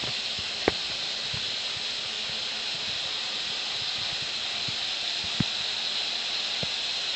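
Steady background hiss, the recording's room tone, with a couple of faint short ticks.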